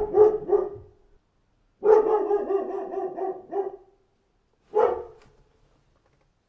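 A dog barking in bursts: a quick run of barks at the start, a longer string of rapid barks about two seconds in, then one single bark.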